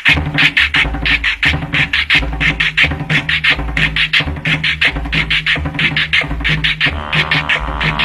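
Cumbia music: a fast, even percussion pattern of about four hits a second over a deep bass line that comes in at the start. Near the end a sustained chordal instrument layer joins.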